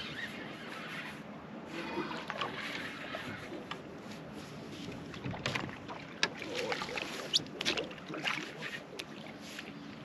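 Open-air ambience aboard a small fishing boat: a steady wash of wind and water against the hull, with scattered light clicks and knocks through the second half.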